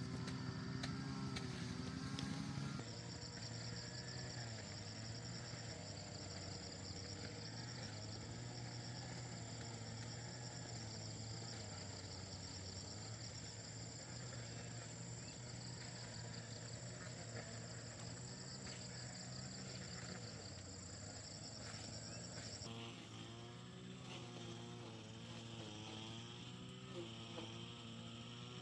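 Insects chirring steadily at a high pitch, the chorus changing to a lower pitch about twenty-three seconds in, over a low steady hum.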